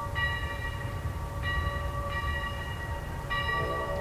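Steam locomotive bell ringing, struck again about once a second, over the low rumble of the approaching 4-4-0 locomotive. A lower sustained tone joins near the end.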